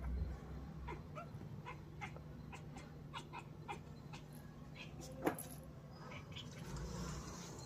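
Black kitten chattering at birds: a run of quick, irregular clicks and small chirps, the excited jaw-chatter cats make at prey they can't reach. One louder, sharp falling chirp comes about five seconds in, over a steady low hum.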